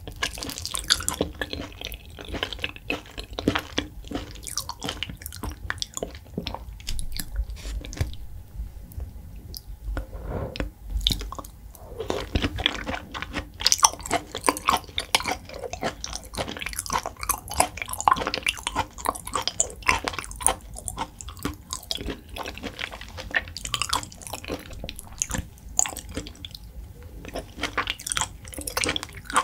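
Close-miked chewing of raw beef: soft, wet mouth clicks and smacks, several a second, in an uneven stream.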